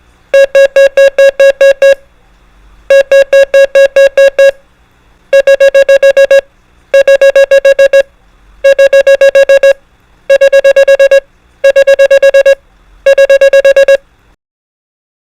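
Morse code tone sending the error prosign, eight quick dits in a row, repeated eight times with the runs getting quicker. It stops about a second before the end.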